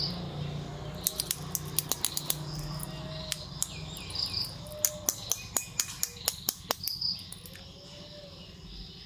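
Sharp clicks and ticks of the hard plastic breaker attachment of a toy RC excavator being handled and turned over. The clicks come in quick runs at first and grow sparser in the second half.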